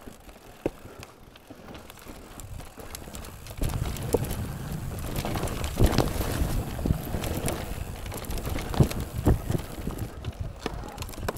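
Mountain bike riding over rough trail, with tyres rumbling and the bike rattling. The rumble gets louder about a third of the way in, with scattered sharp knocks from bumps.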